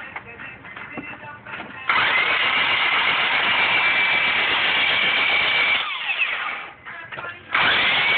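1996 Honda Accord four-cylinder engine being cranked by its starter motor: a sudden loud high whine rises and holds for about four seconds, winds down in pitch when the key is let go, then cranking starts again near the end. The engine turns over but does not fire, the no-start the owner is chasing.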